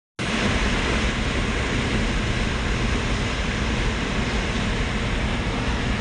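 Steady road and wind noise inside a car cruising at highway speed: tyre rumble with a wide rushing hiss.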